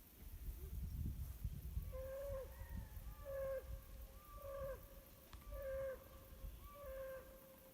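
A deer calling: five short bleats, about one every 1.2 seconds, each ending in a drop in pitch. A low rumble of wind or handling noise comes before them.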